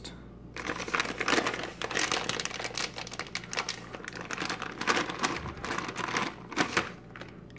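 Plastic bag of shredded mozzarella crinkling as it is handled and shaken over the dish: a dense, rapid crackle that starts about half a second in.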